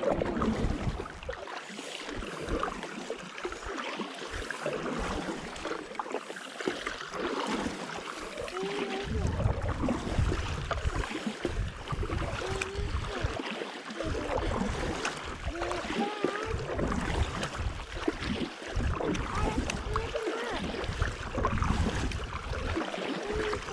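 Stand-up paddleboard paddling in soft rain: water washing and lapping around the board and paddle under a steady hiss of rain, with irregular low rumbles.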